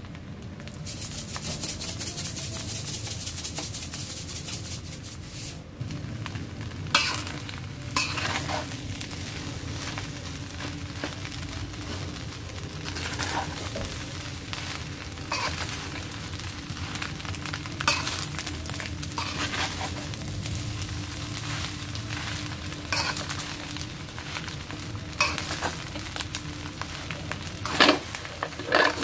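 Fried rice sizzling in a stainless steel pan while a metal spatula stirs and turns it. The spatula scrapes against the pan every second or two.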